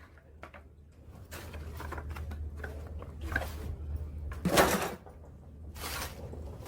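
Scrapes and light knocks of parts being handled while a top-loading washing machine is taken apart, over a low steady hum. The loudest scrape comes about four and a half seconds in.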